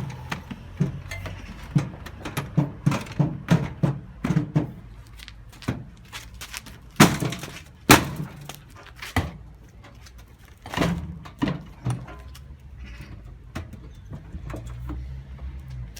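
Repeated irregular knocks and clunks of a plastic toy washing machine being pushed into a front-loading washing machine's drum, with the door pressed against it and failing to shut. The two loudest clunks come about seven and eight seconds in, and the knocking dies away after about twelve seconds.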